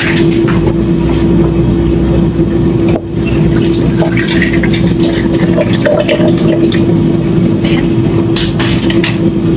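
A kitchen appliance runs with a loud, steady mechanical hum that holds one constant tone. Over it come the rustle and crinkle of a paper sauce-mix packet and a milk carton being handled, in short clicks and scrapes.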